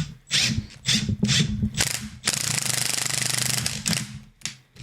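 Impact wrench hammering in short trigger blips, then a longer run of about a second and a half, driving the threaded rod of a bush press to push a new rear suspension bush into the wishbone.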